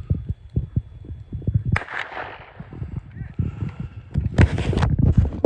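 A gunshot about two seconds in, its crack dying away over about half a second, and a second loud burst around four and a half seconds in. Underneath run the heavy thumps of running footsteps, several a second, from the person with the camera chasing the hog.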